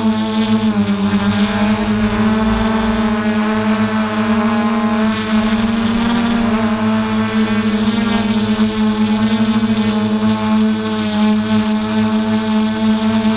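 DJI F450 Flamewheel quadcopter's motors and propellers humming steadily in flight, the pitch dipping and rising slightly a few times with throttle changes.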